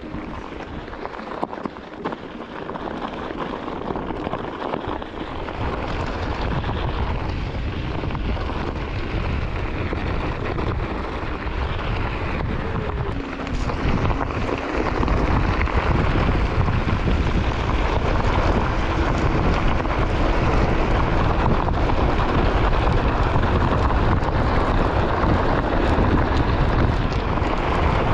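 Onewheel electric board rolling over a gravel trail, tyre crunching, with wind buffeting the action camera's microphone. It grows louder about halfway through.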